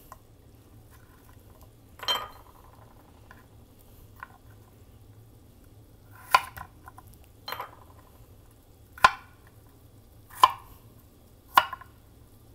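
Chef's knife cutting a peeled white radish into cubes on a bamboo cutting board: a sharp knock each time the blade goes through and hits the board, about six strokes, unhurried and a second or so apart.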